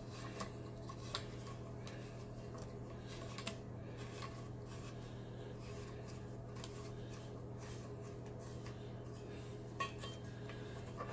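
Light clicks and clinks of faucet mounting nuts being threaded on by hand against the underside of a porcelain sink, with a few louder clicks now and then. A steady low hum runs underneath.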